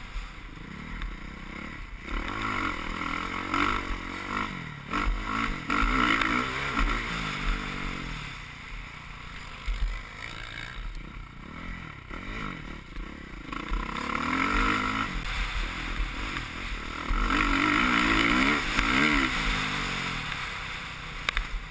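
Suzuki RM-Z450 four-stroke single-cylinder motocross engine under riding load, its revs rising and falling over and over as the rider accelerates and shifts around a dirt track.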